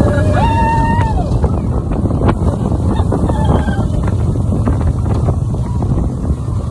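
Wind buffeting the microphone over the steady rumble of a Slinky Dog Dash roller coaster train running along its track, with a couple of held high notes near the start.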